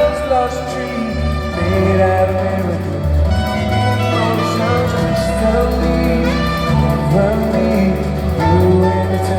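Live band playing a ballad: sustained bass notes shifting every second or two, under a gliding melodic line.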